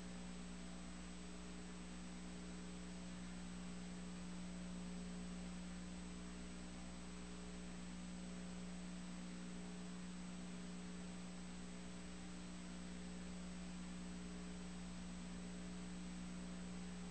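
Steady electrical hum with an even hiss and a faint high whine, unchanging, with no race sounds in it.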